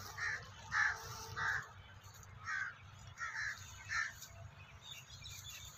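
Crow cawing: six short, harsh caws in two groups of three, faint.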